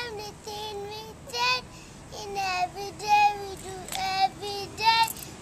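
A young boy singing a simple tune unaccompanied, in short phrases of held notes that step up and down between a few pitches.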